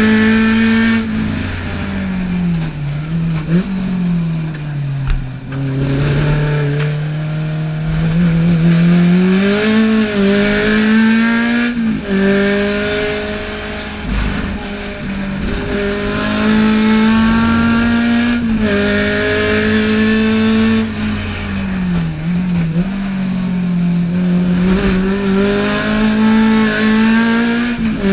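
A highly tuned Alfa Romeo twin-cam four-cylinder engine in a GT Junior is run hard at high revs, heard from inside the cabin. Its note is mostly held high, and it drops and climbs again several times as the revs change through the lap.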